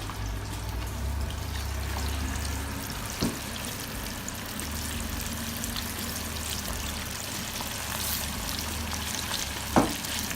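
Battered chicken wings deep-frying in hot oil, a steady sizzle. A short knock about three seconds in and a louder one near the end.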